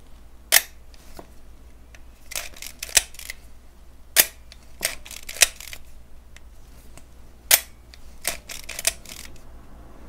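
Leica M2 rangefinder's cloth focal-plane shutter fired over and over: a series of sharp clicks a second or two apart, with softer clicks between as the camera is wound on. It is the freshly overhauled shutter being tested, running through its fast speeds.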